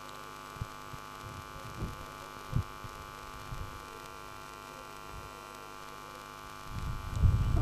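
Steady electrical mains hum on the broadcast sound, with a few faint low thumps in the first few seconds and a low rumble building near the end.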